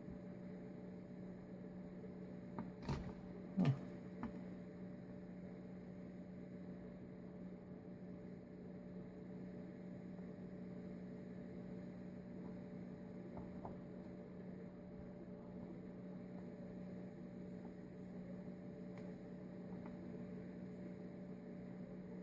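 Steady electrical hum with two small sharp clicks about three seconds in, and a faint tick or two later, from small carburettor parts being handled and fitted.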